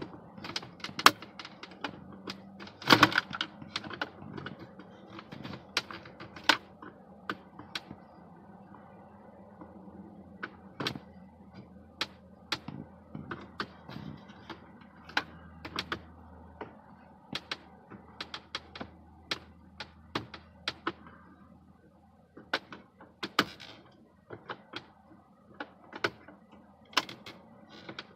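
Irregular clicks and knocks of plastic dashboard trim and clips being handled and pried at, with a louder clatter about three seconds in.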